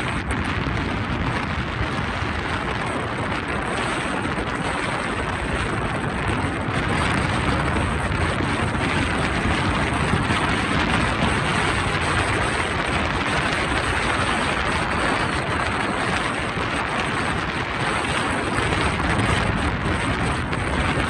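Steady tyre and wind noise of a Mercedes-Benz car driving along a paved road, with no changes.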